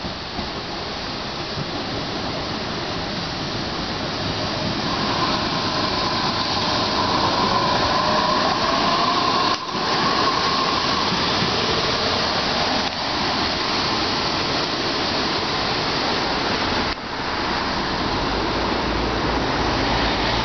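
A Tatra KT4D tram approaches round a curve and passes close by, rumbling along the rails and growing louder until it is alongside. A steady whining tone joins for several seconds as it rounds the curve.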